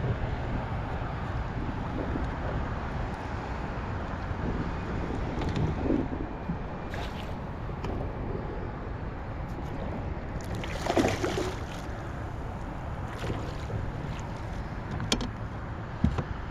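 Wind buffeting the microphone over water on a kayak, a steady rushing noise. There is a brief louder rustle about eleven seconds in, and a few sharp knocks near the end.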